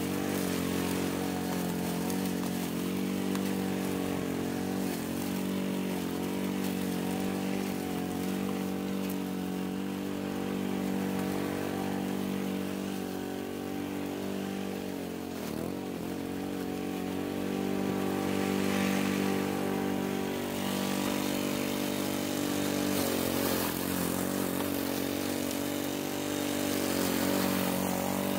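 Troy-Bilt walk-behind gas lawn mower running steadily while cutting tall, thick grass, its engine note dipping briefly under the load a few times, most clearly about halfway through and again near the end.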